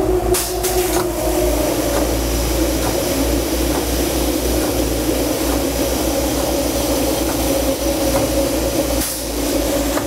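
Diesel engines of a truck-mounted sealcoat spray rig running steadily as the truck pulls away, laying water through its spray bar and drag box. Brief hisses of air near the start.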